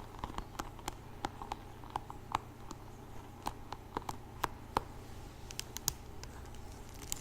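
Irregular light taps and clicks from a hairbrush being handled and tapped, made for ASMR, over a faint steady low hum.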